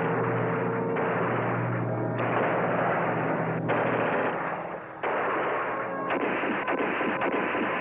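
Heavy battle gunfire on a 1960s TV soundtrack, rapid shots and bursts of automatic fire with a steady music score underneath. The firing drops away briefly about five seconds in and then resumes.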